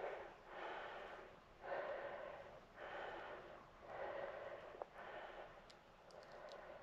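A person breathing close to the microphone: a regular series of faint breaths, about one a second.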